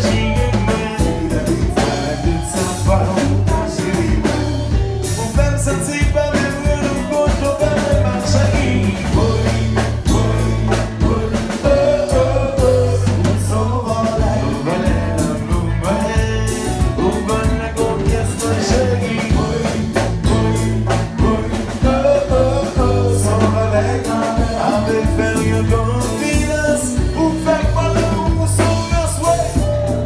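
Live Haitian konpa band playing with a steady beat: a lead singer on microphone over acoustic guitar, electric guitar and drum kit.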